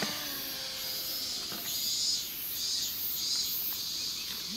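Insects chirping in high, even pulses, about two a second, with the model plane's motor tone fading out in the first moment.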